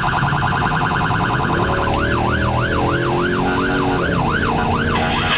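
Emergency truck's electronic siren heard from inside the cab, cycling in a very fast warble, then switching about two seconds in to a slower yelp that rises and falls about twice a second.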